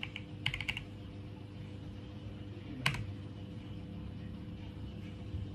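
Computer keyboard keystrokes: a quick run of several key presses in the first second, then a single louder key press about three seconds in as the typed mysql command is entered. A faint steady hum runs underneath.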